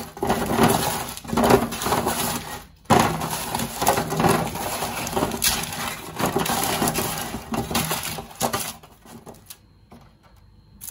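Baking paper crinkling and rustling in a roasting tray as hands toss and arrange oiled butternut squash wedges on it. It goes quiet after about nine seconds.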